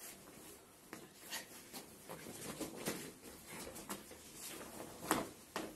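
Quick footsteps and scuffs of people running, dropping to their hands and crawling on a tiled patio floor, with a sharper knock about five seconds in.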